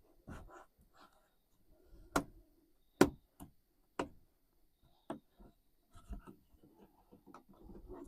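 Replacement car door glass being worked into the door: irregular sharp clicks and knocks of glass against the door's metal and plastic tabs, with softer rubbing and rustling between them. The loudest knock comes about three seconds in.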